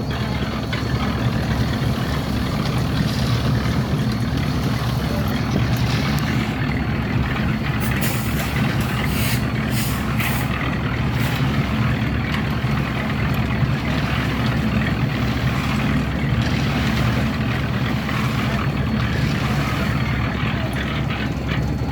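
A heavy engine running steadily, like a truck or construction machine, with a few short hissing bursts around the middle.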